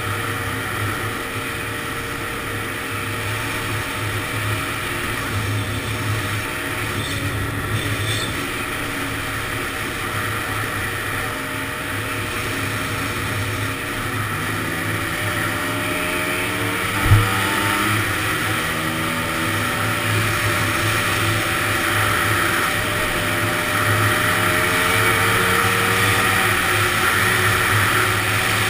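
Honda ATC 250R three-wheeler's two-stroke single-cylinder engine running while under way, over a steady hiss. Its pitch climbs a little past halfway, where there is one sharp thump.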